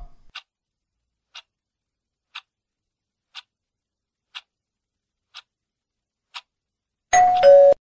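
Countdown timer sound effect: seven soft clock ticks, one a second, then near the end a louder short two-note sound stepping down in pitch, marking the end of the countdown.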